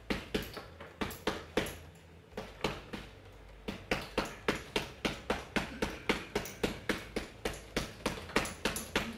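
Gloved punches landing on a hanging heavy punching bag. A few short combinations of two or three quick hits come first, then a brief pause, then from about four seconds in a steady, rapid run of punches, roughly three to four a second.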